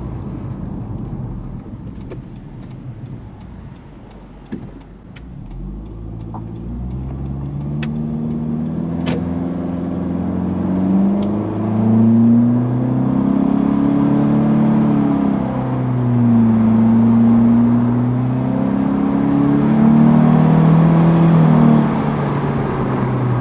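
2022 Honda Civic Sport's 2.0-litre four-cylinder through a Function Werk dual exhaust, heard inside the cabin under hard acceleration in sport mode. The engine is quiet for the first few seconds, then its note climbs and drops back again and again as it pulls through the gears, getting louder. It sounds really good, with no drone inside the cabin.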